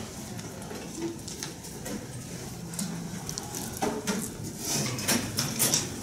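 Scattered clicks, knocks and rustles of objects being handled and gathered up, coming thicker and loudest over the last two seconds.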